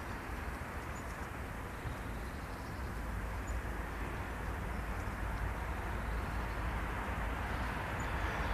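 Steady outdoor background rumble, strongest in the bass with a soft hiss above it, growing slightly louder toward the end.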